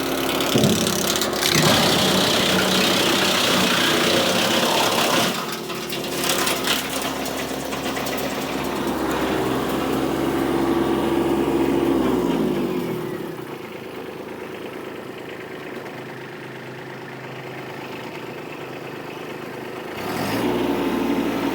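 Kubota B2601 compact tractor's three-cylinder diesel engine running at working speed to drive a PTO wood chipper. About twelve seconds in, the engine slows and runs quieter, then grows louder again near the end.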